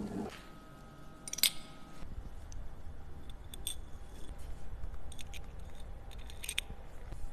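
Light metallic clicks and clinks of small watch parts and tools being handled, with one sharper click about a second and a half in and small clusters of clicks after it. A humming tone cuts off just after the start, and a low rumble comes in after about two seconds.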